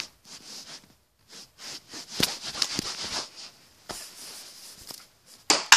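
Rustling and handling noise with several sharp clicks and knocks, the loudest about two seconds in and again just before the end.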